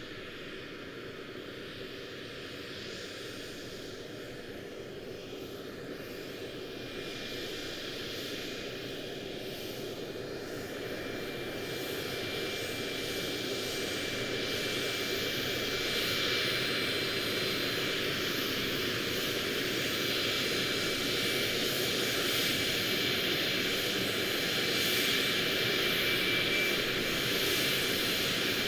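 Jet airplane engine noise: a steady rush with a faint high whine, growing gradually louder throughout.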